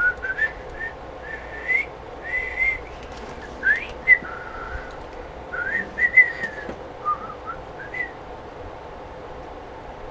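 A person whistling a tune in short phrases of clear notes that slide up and down in pitch, stopping about eight seconds in.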